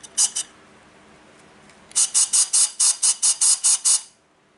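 Scuba regulator second stage (Scubapro G250) being adjusted with an inline adjustment tool: a short run of rapid clicking at the start and a longer run of about a dozen clicks, about six a second, from about two seconds in. A faint hiss of the regulator's slight free flow lies between the two runs.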